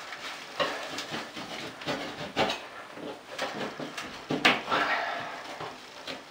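Painted popcorn ceiling texture being scraped and peeled off drywall with a hand scraper: irregular rasps, rustles and tearing of the paper layer, with a few sharp ticks.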